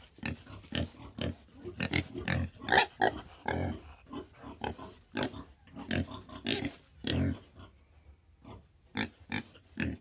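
Pig grunting: a rapid, irregular run of short grunts that thins out about seven seconds in, with a few more grunts near the end.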